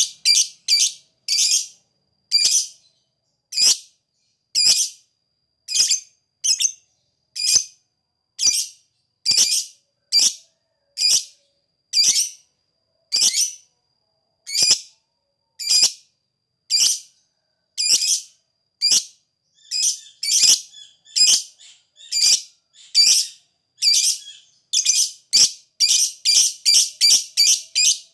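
Lovebird giving short, high-pitched chirps about once a second, bunching into quick runs of several a second near the end. This is the 'ngetik' ticking that leads into the 'ngekek' chatter.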